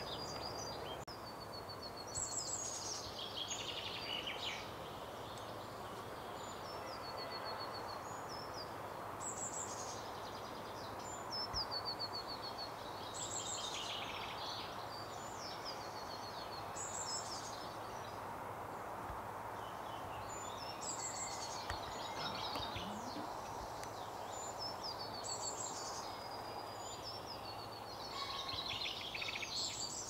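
A small songbird singing the same short song over and over, about every four seconds: a run of high notes that drops into a rapid trill. Under it is a steady outdoor hiss.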